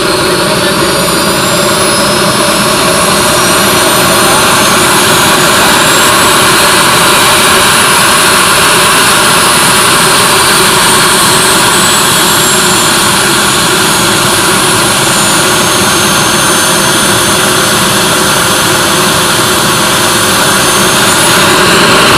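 Small model jet turbines of a radio-controlled MD-11 airliner model running on the ground: a loud, steady roar with several high whines that climb over the first several seconds, then ease down a little and level off.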